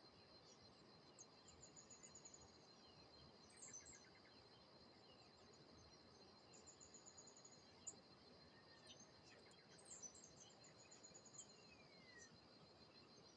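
Faint birdsong: small birds giving repeated high trills and scattered short chirps, over a steady high insect trill.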